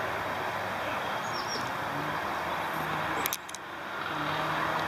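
Steady outdoor rushing noise with a small bird chirping twice, a short falling note each time, about a second and a half in. A couple of sharp clicks come about three seconds in.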